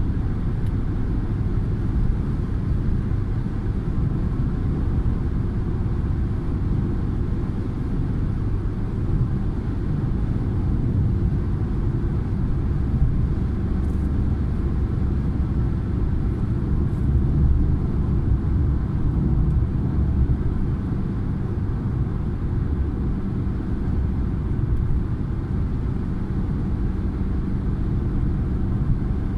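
Steady low rumble of a car driving at highway speed, heard from inside the cabin: tyre and road noise with the engine running underneath.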